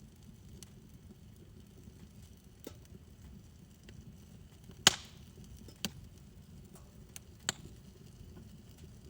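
Wood fire in a backyard fire pit crackling, with scattered sharp pops, the loudest about five seconds in, over a low steady rumble.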